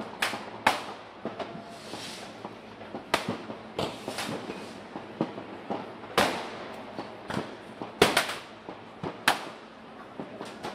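New Year's Eve fireworks and firecrackers going off: irregular sharp bangs, some near and some distant, with the loudest about six and eight seconds in, over a steady background of scattered pops.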